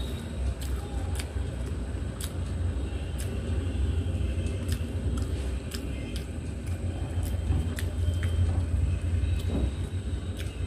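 Fingers mixing and scooping rice on a steel plate with small scattered clicks and scrapes, along with chewing, over a steady low rumble.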